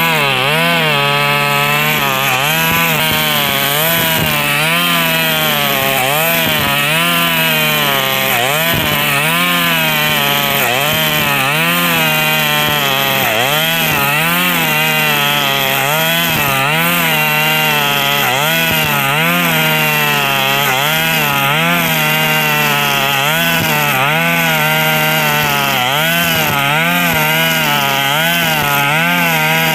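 KNC 4400 brush cutter engine running under load while cutting grass with nylon line. Its pitch rises and falls about once a second. The exhaust muffler is rusted through with small holes, so the engine sounds very loud.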